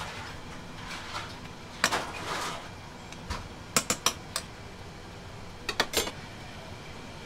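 Metal serving tongs clinking against a rice-cooker pot and a bowl while simmered beef is scooped out and piled onto rice for a beef bowl. There is a single clink about two seconds in, then quick runs of three or four sharp clinks a little past halfway and again near the end, over a low kitchen background.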